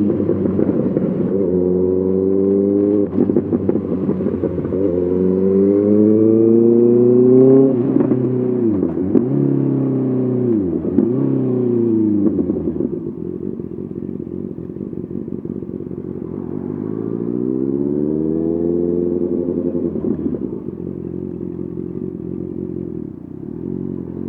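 Honda CBR 650R inline-four through an SC-Project SC1R exhaust, ridden hard: the engine pulls up through the gears with the pitch climbing and dropping at each shift, then twice about halfway through the revs fall sharply and jump back up on downshifts. It holds steadier for a while, then pulls up again with rising revs near the end.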